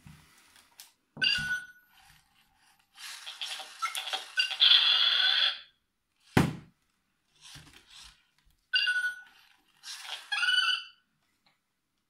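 Top Race self-balancing toy robot's speaker playing electronic sound effects: short pitched chirps, then a longer burst of warbling bleeps, then more chirps near the end. A single sharp knock comes about six seconds in.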